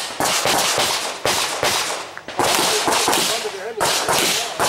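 A string of pistol shots in practical shooting, several sharp reports spaced roughly half a second to a second apart, each with a long echoing tail.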